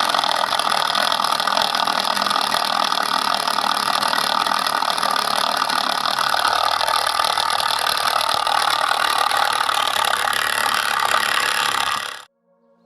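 Small electric motor of a miniature generator model running at a steady high speed, a loud, even whirring buzz; it cuts off suddenly near the end.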